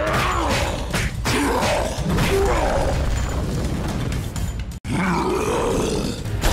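A run of short growling and grunting creature sound effects, rising and falling in pitch, over background music. The sound drops out for an instant about five seconds in.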